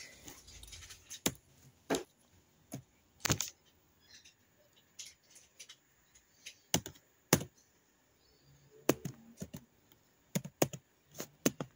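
Typing on a small computer's keyboard: about a dozen separate key clicks at irregular intervals, with pauses between them, as a search is entered.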